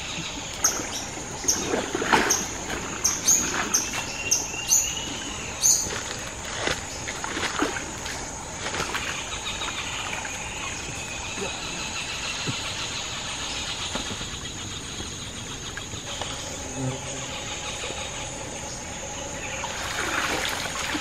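Water splashing and sloshing around a person wading in a shallow creek while working a snagged cast net free. It ends in a louder rush of water near the end as the net is hauled up dripping. A steady high-pitched insect drone carries on underneath.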